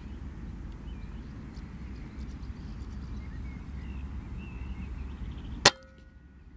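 Single sharp crack of a .177 Air Arms S400 pre-charged pneumatic air rifle firing, near the end, with a brief ring after it. Before it there is a low steady rumble and faint bird chirps.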